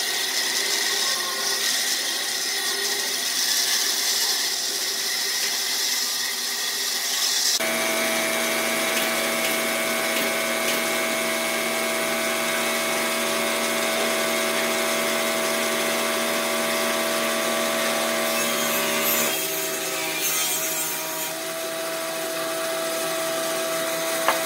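Bandsaw slicing discs off a thick log round: a steady motor hum with the hiss of the blade cutting through the wood. The sound changes abruptly about seven seconds in and again near nineteen seconds, at edits between cuts.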